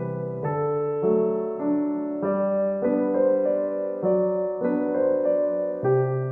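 Background piano music: an electric-piano-like instrument playing sustained chords and notes that change roughly every half second to second.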